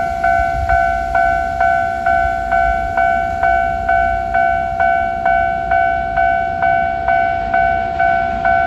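Japanese electronic level-crossing warning bell in its normal low-tone setting, ringing about twice a second with a steady two-note tone, signalling that the barriers are down for an approaching train.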